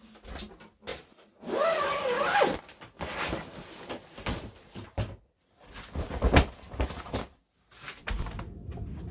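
Irregular knocks, thuds and handling noises in a small room, with a creak lasting about a second near the start and the loudest thud about six seconds in.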